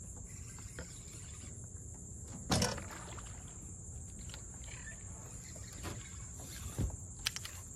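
A steady high insect buzz from the marsh over a low wind rumble, with one sharp knock about two and a half seconds in and a few lighter knocks near the end.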